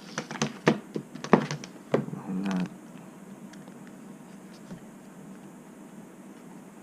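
Handling of a plastic phone case and its packaging: a quick run of uneven clicks and taps for about the first three seconds, then only faint room tone.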